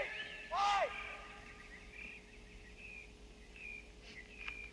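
A shouted call on an outdoor soccer field about half a second in, then faint short high chirps and a single sharp knock near the end, over steady outdoor background noise.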